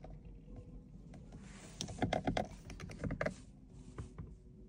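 Protective plastic film being peeled off a new car's door switch panel, crackling and snapping in a dense run for about two seconds in the middle, with faint ticks before and after.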